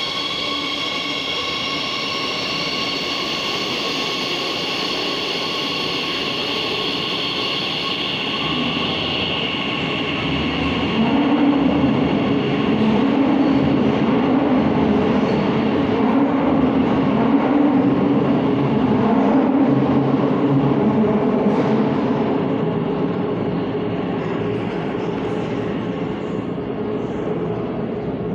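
Madrid Metro train pulling out of the station: its electric traction motors whine in several steady high tones that slowly drop and fade. About eleven seconds in, a louder rumble of train wheels on the rails swells up, then eases off toward the end.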